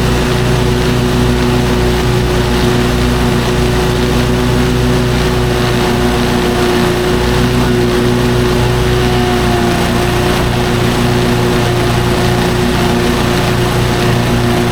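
Lawn mower engine running steadily at a constant speed while mowing, with a steady hum.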